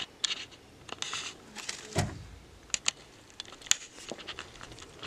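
Light rustling and scattered sharp clicks, with one dull thump about two seconds in.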